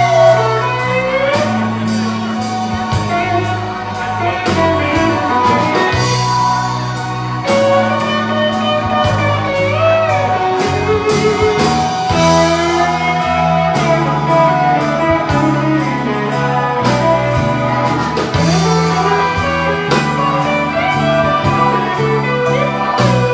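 Live blues-rock band playing an instrumental passage: electric guitar lead with bent notes over drums, bass guitar and Hammond organ.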